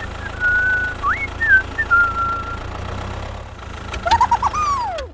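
Steady low tractor-engine rumble, with a string of high whistled notes and sliding pitch glides over it: short notes in the first two and a half seconds, then a quick run of notes about four seconds in ending in a long falling glide.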